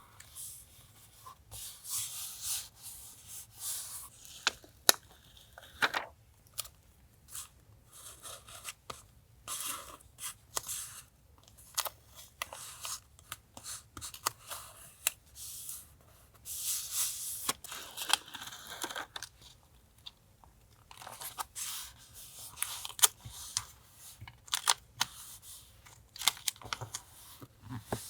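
Paper and sticker sheets being handled for a journal collage: irregular rustling, crinkling and tearing of paper, with many sharp little taps and clicks.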